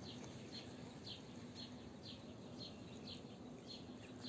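A small bird repeating a short, high, falling chirp about twice a second, faint and steady.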